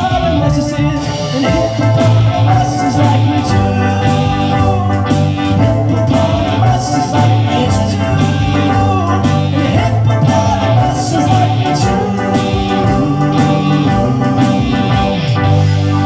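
Live band playing electric guitar, bass guitar and keyboard together, with a steady beat.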